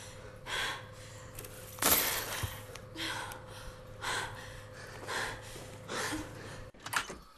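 Two people breathing heavily, a breathy gasp about once a second, the strongest about two seconds in. A steady low hum runs beneath and cuts off near the end.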